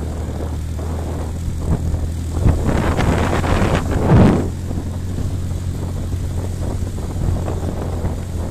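A vehicle engine running at a steady low drone while travelling over a rough dirt road, with a louder rushing noise that swells and fades about three to four seconds in.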